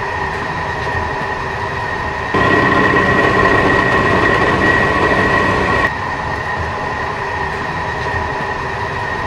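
Millrite MVN vertical mill spindle running at speed, a steady hum with a high tone. About two and a half seconds in it switches to the spindle before its lube and bearing adjustment, louder and rougher. Around six seconds in it returns to the quieter, smoother run after lubrication and spindle adjustment.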